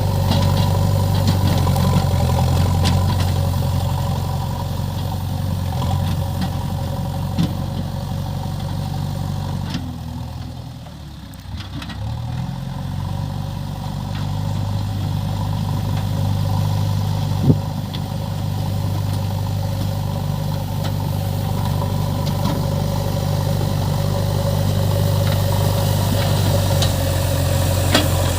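A JCB 3DX backhoe loader's diesel engine runs steadily at idle. Its drone sinks and thins out for about two seconds near the middle, then picks up again and holds.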